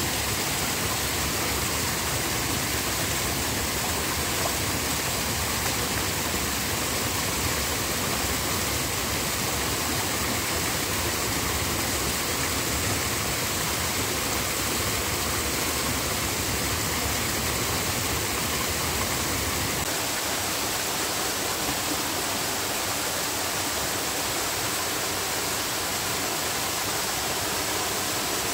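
Steady rushing of flowing water, like a stream or small waterfall. About two-thirds of the way through, the low rumble drops away while the hiss carries on.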